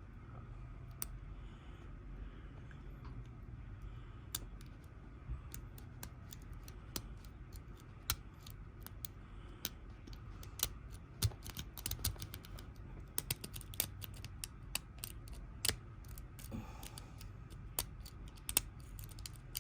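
Small, irregular metallic clicks of a lock pick working the pin stack of a Kwikset pin-tumbler cylinder under tension, coming in quicker clusters in the second half, over a faint low hum.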